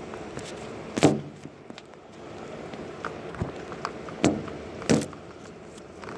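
Heavy rain pouring with a steady hiss, broken by three sharp knocks: one about a second in and two close together past the four-second mark.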